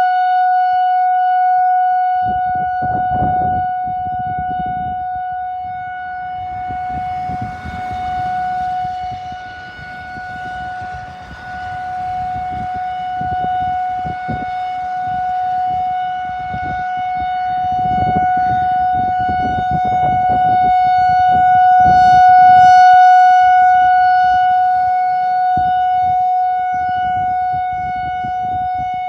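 Whelen WPS 4004 electronic outdoor warning siren sounding a steady, unwavering tone that slowly swells and fades in loudness. Irregular low rumbling noise comes and goes underneath.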